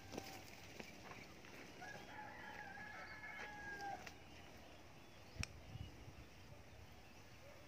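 A rooster crowing faintly: one long, held call from about two seconds in, lasting about two seconds. A single sharp click comes a little past the middle.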